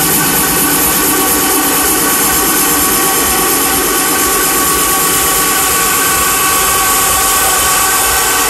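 Loud electronic dance music from a festival sound system in a beatless stretch: a held synth chord over a dense, steady wash of noise, with no drum beat.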